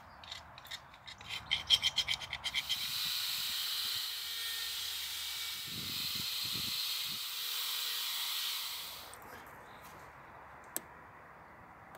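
Aerosol spray can rattled with fast, even shakes for a couple of seconds, then sprayed in a steady hiss for about six seconds before cutting off; a single sharp click near the end.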